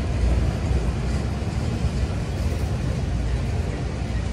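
Autorack freight cars rolling past on the rails, a steady low rolling noise from the wheels and cars.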